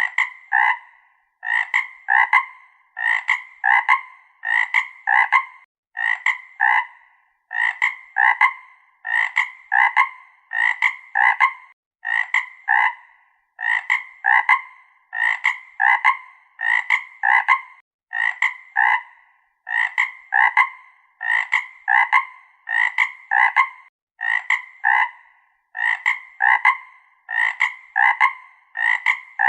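A frog croaking over and over in an even rhythm, a little more than one call a second, each call a quick run of two or three short notes.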